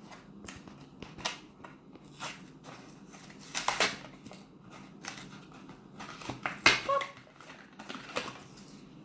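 Plastic toy packaging being handled and opened: crinkling and rustling with scattered sharp clicks and taps, loudest a little under four seconds in and again near seven seconds.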